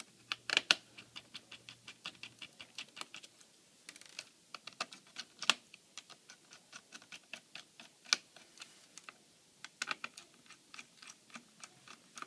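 Rapid, fairly regular light clicking of a small screwdriver undoing the screws that hold a laptop's fan and heatsink, with a few louder clicks among them.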